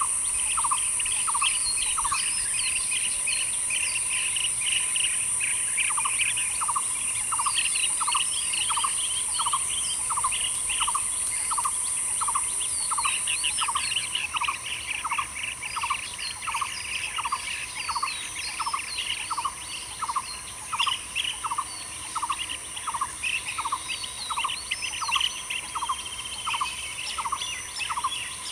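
Outdoor bird chorus of quick chirping calls, with one short note repeated about three times every two seconds, over a steady high-pitched insect drone. The drone drops in loudness about halfway through.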